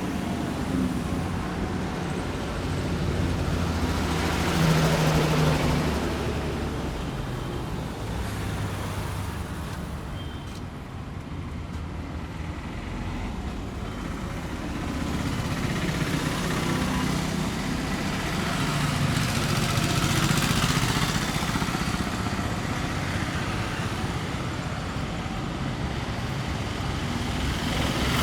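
Passing road traffic: a continuous rumble of vehicles that swells and fades as they go by, louder about five seconds in and again around twenty seconds in.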